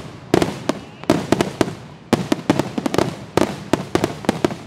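Aerial fireworks shells bursting overhead in rapid volleys of sharp bangs, several at a time, in groups about once a second. The bangs stop near the end.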